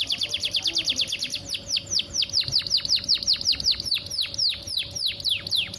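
Domestic canary singing a rapid trill of high, falling whistled notes. The trill slows and the notes sweep lower toward the end, then the song stops suddenly.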